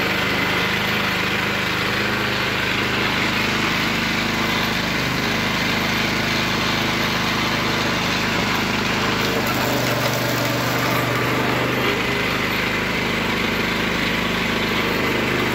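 Motor-driven sugarcane juicer running steadily, its small engine humming while the rollers crush sugarcane stalks fed into it.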